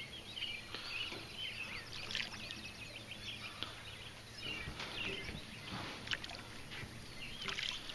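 Hooked largemouth bass splashing at the water's surface while being played on the line: a few short splashes. Birds chirp in the background.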